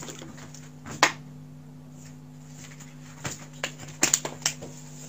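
Scattered small clicks and taps, as of objects being handled on a table, over a steady low electrical hum: one sharp click about a second in, then a run of lighter clicks in the second half.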